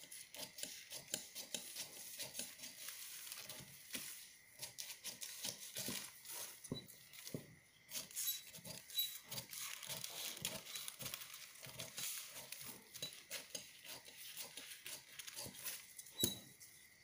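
Large fabric shears cutting through a paper pattern: a steady run of short, crisp snips with paper rustling as the blades work along a curved line.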